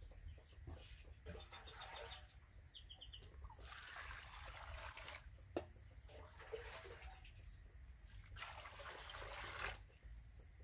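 Water poured from a scoop into a steel bowl of white powder, mixing it. There are two pours of about a second and a half each, with a sharp knock between them.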